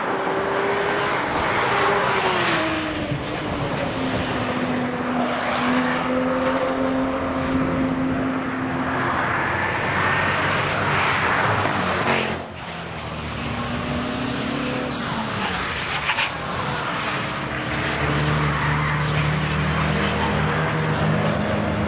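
Cars driving past at speed on a race track one after another, their engines at high revs, with engine notes falling in pitch as they go by and rising again as they accelerate, often overlapping. There is a brief lull about halfway through.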